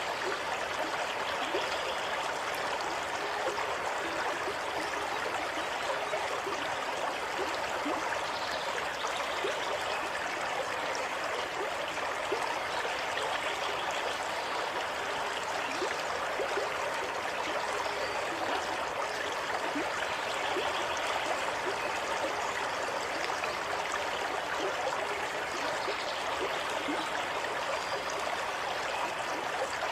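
Water running steadily in a stream, an even rushing sound with light gurgling.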